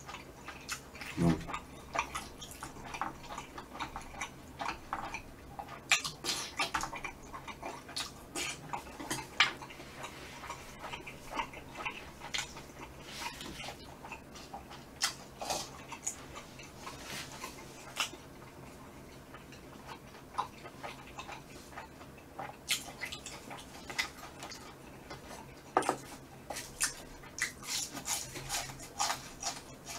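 Close-miked eating sounds: chewing and mouth smacking on spicy braised chicken, with sharp clicks of chopsticks against a metal tray scattered throughout.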